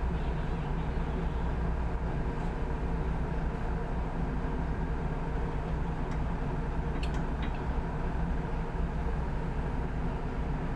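Tugboat's diesel engine running with a steady low drone, heard from on board while the tug holds a towline to a large bulk carrier.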